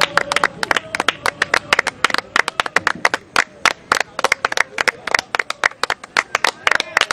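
Football supporters clapping, many sharp, uneven hand claps a second, with voices calling faintly underneath.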